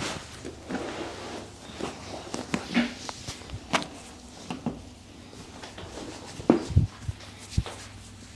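Scattered clicks, rubbing and knocks of hands-on chiropractic treatment, with a few louder thumps about six and a half to seven and a half seconds in, over a low steady hum.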